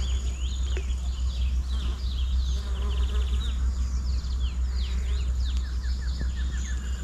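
Birds chirping and calling all through, with a steady high insect buzz, over a steady low rumble. Near the end a quick run of short, falling notes.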